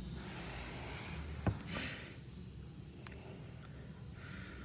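Steady high-pitched hiss of air escaping from the open, reamed puncture in a car tire before the plug goes in, with a single knock about a second and a half in.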